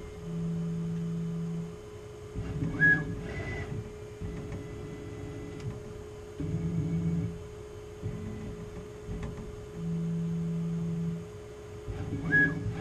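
Tormach 440 CNC mill's axis motors whining in separate moves, each about half a second to a second and a half long, as the touch probe travels between touch points during an automatic probing cycle, over a steady machine hum. A couple of short high chirps sound about three seconds in.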